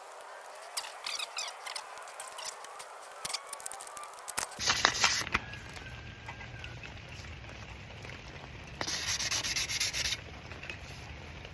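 Abrasive rubbing and scraping on a part, first as light scraping with scattered clicks, then as two loud hissy bursts, a short one about halfway and a longer one near the end. A low hum comes in partway through.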